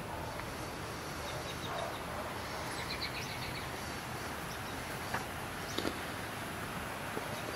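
Outdoor ambience: a steady background hiss with a few faint, high bird chirps, and a couple of sharp clicks about two-thirds of the way through.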